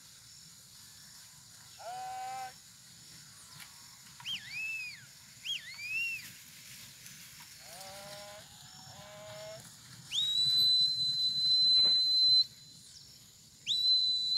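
A few short livestock bleats, then whistled calls that glide up and down, then two long, loud, steady high whistles near the end: a herder whistling commands while working cattle with dogs.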